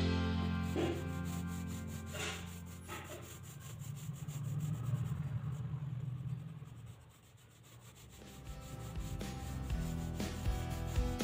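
Pencil scratching on paper in short strokes as brick lines are drawn, under quiet background music that fades down a little past halfway and then comes back up.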